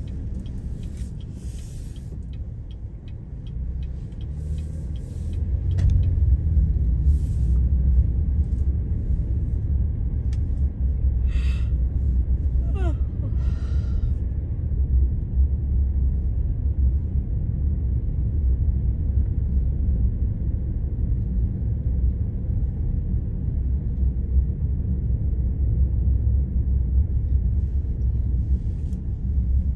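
Car driving on a wet road, heard from inside the cabin: a steady low rumble of tyres and engine. It grows louder about five seconds in as the car moves onto rougher, cracked pavement.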